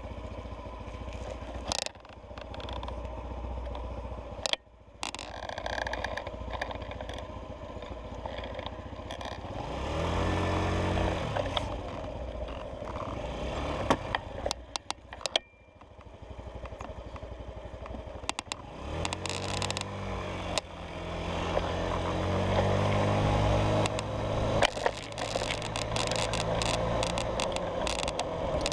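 Honda Ruckus scooter's small single-cylinder four-stroke engine running under way, pitch rising as it accelerates in a few surges, over wind and road noise. Scattered sharp knocks and rattles come through, most often near the end.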